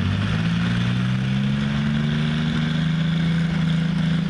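A John Deere farm tractor's engine working hard under full load as it pulls a weight-transfer sled. Its pitch climbs a little over the first couple of seconds, then holds steady.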